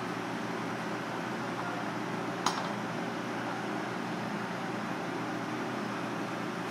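Steady hum of a kitchen fan running, with one sharp click about two and a half seconds in.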